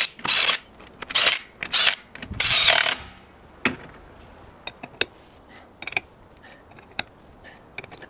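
Ratchet wrench clicking in about five quick bursts as wheel nuts are run onto a tractor wheel, followed by scattered light metal clicks.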